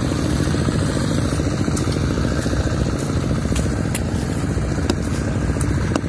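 A small engine running steadily, with a few faint ticks over it.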